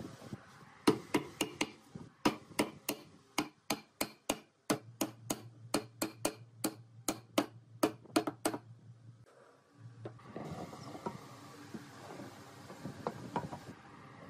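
An even run of sharp knocks, about three a second, for roughly seven seconds, the sound of hard strikes on wood. Near the end, softer scattered knocks as the pine boards are laid into pipe clamps.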